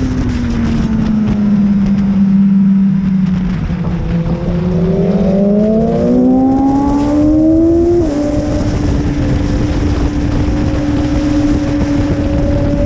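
BMW S1000RR inline-four engine at speed on track: the revs drop over the first two seconds as it slows, climb hard from about four and a half seconds in, fall sharply at an upshift near eight seconds, then pull on steadily. A steady rush of wind noise runs under it.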